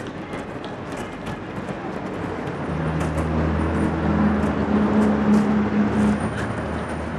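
A motor vehicle's engine running with a steady low hum that comes in about three seconds in, grows louder and eases near the end, over general street noise.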